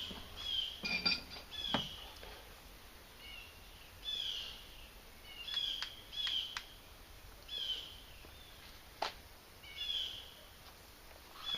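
A small bird chirping repeatedly outdoors, short high notes coming about once a second, with a few sharp clicks in between.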